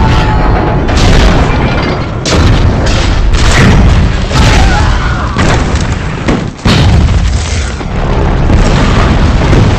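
Film sound effects of an air raid on warships: heavy explosions one after another with barely a pause. A brief dip about two-thirds in is cut off by a fresh blast.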